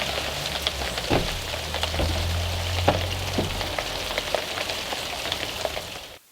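Steady rain hiss with scattered ticks of drops, recorded through a shotgun microphone, over a low steady hum. It cuts off abruptly near the end.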